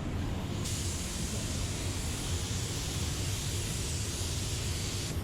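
Aerosol can of blending solvent (fade-out spray) being sprayed in one long, steady hiss. It starts about a second in and cuts off suddenly near the end, blending the edge of a spot repair in fresh clearcoat. A steady low hum runs underneath.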